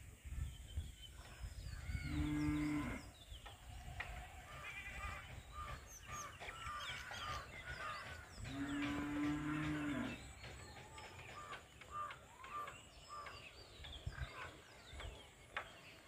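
A cow mooing twice: a call of about a second, then a longer, steady low call of nearly two seconds a few seconds later.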